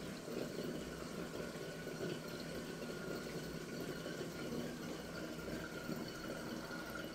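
Steady water noise from a saltwater reef aquarium's circulation, with a faint, even high hum over it.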